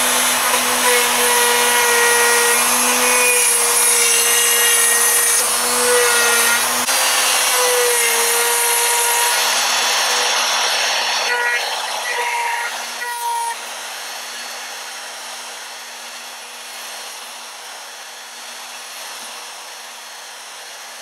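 Bosch router running at a steady high speed while its bit cuts a hinge mortise into the edge of a door, following a template. About thirteen seconds in, the cutting noise stops and the router runs on steadily and more quietly.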